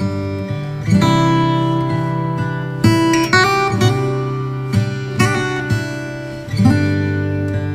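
Background music: acoustic guitar strumming chords, a new chord struck every second or two.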